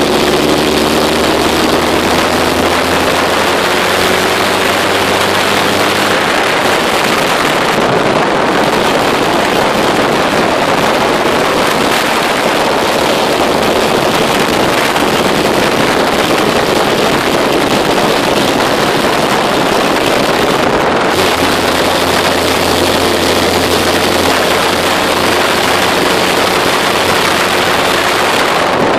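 Car engine running while driving, with loud, steady wind noise on the microphone. A low engine tone shows through near the start and again in the last third.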